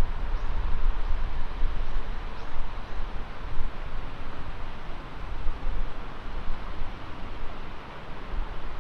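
Wind buffeting the microphone: a steady rushing noise with a heavy low rumble that rises and falls in gusts.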